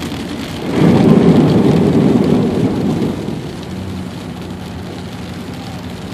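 Vehicle tyres splashing through floodwater flowing across the road, a loud rush of spray against the underside for about two seconds, then easing to the steady hiss and hum of tyres on the wet road.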